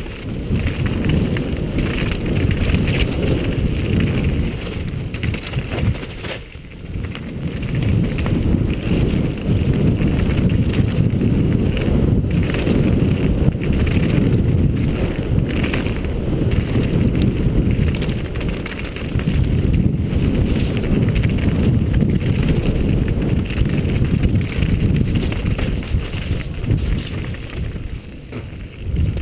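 Downhill mountain bike descending a rough dirt trail at speed: heavy wind rush on the helmet-mounted microphone mixed with tyre and bike noise over the ground, easing briefly twice.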